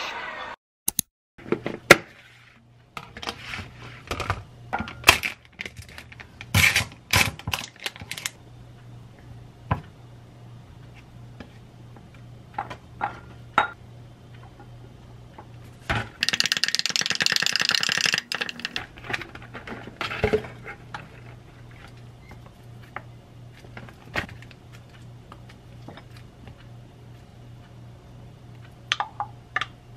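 Kitchen handling sounds: sharp clicks and knocks of utensils against dishes and glass, with a scraping burst of about two seconds about halfway through as a wooden spoon stirs Greek yogurt and syrup in a glass beaker. A low steady hum runs underneath.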